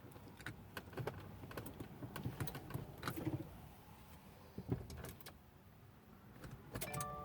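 Scattered light clicks and knocks of controls being handled inside the car cabin. Near the end an electronic chime sounds: several steady tones held together.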